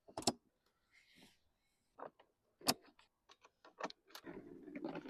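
Hard plastic pressure-washer wheels and parts being handled: a string of sharp clicks and knocks, then rustling near the end.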